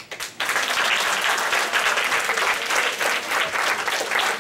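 A congregation applauding: a few scattered claps, then the whole crowd breaks into steady clapping about half a second in.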